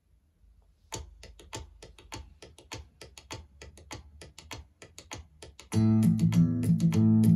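Guitar music played back through a portable Bluetooth speaker: about a second in, a quiet, quick run of short plucked notes starts, and near six seconds in the full arrangement with bass comes in much louder.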